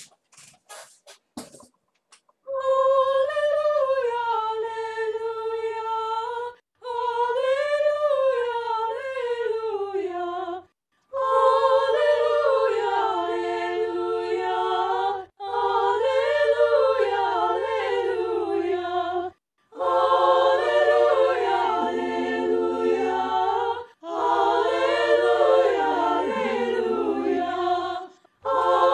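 Unaccompanied voices singing a slow song a cappella, beginning about two and a half seconds in. The phrases are held and separated by short breaths, with a single line at first and then voices in harmony. A steady low hum runs beneath the singing.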